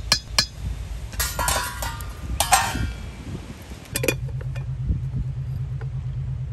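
Kitchen dishes and utensils clinking: a few sharp clinks, then two rattling, ringing bursts. About four seconds in, a low, steady pulsing hum starts.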